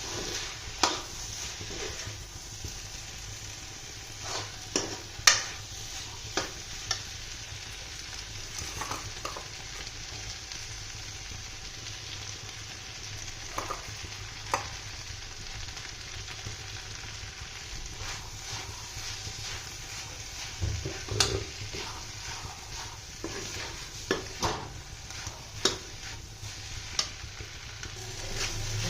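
Okra and tomato sizzling steadily in a pan. A spatula stirs and now and then knocks and scrapes against the pan in sharp clicks.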